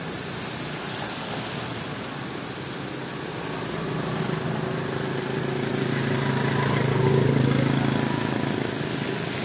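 Heavy rain hissing steadily. From about four seconds in, a steady engine hum rises, is loudest around seven seconds, then eases off.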